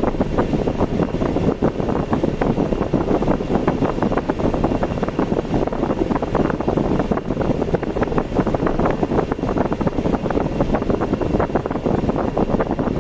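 Steady rushing road and vehicle noise from a car being driven, with wind buffeting the microphone.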